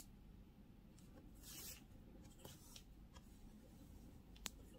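Near silence with faint soft rustles of aran-weight yarn being drawn through crocheted fabric as a seam is hand-sewn with a yarn needle. One slightly louder rustle about one and a half seconds in, and a small click near the end.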